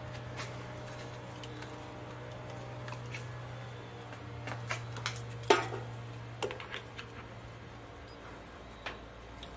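Scattered light clicks and metal clinks of handling at a metal lathe, the sharpest about five and a half seconds in, over a steady low hum that dies away about seven to eight seconds in.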